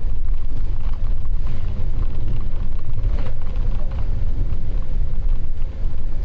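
Double-decker bus driving, heard from inside on the upper deck: a loud, deep rumble with clicks and rattles from the bus's fittings.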